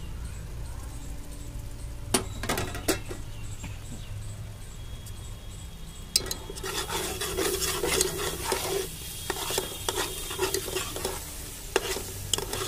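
Thick masala gravy sizzling in a metal pot while a metal ladle stirs it and scrapes the bottom. There are a couple of sharp knocks about two seconds in, and the stirring and scraping grow busy from about six seconds in. The masala is being fried down until the oil separates.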